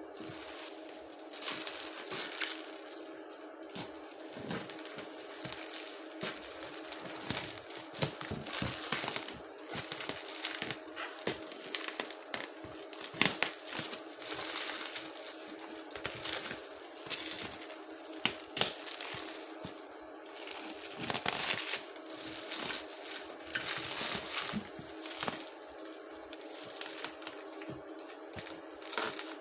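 Plastic packaging crinkling and rustling in irregular handfuls as items are unpacked from a box, over a faint steady hum.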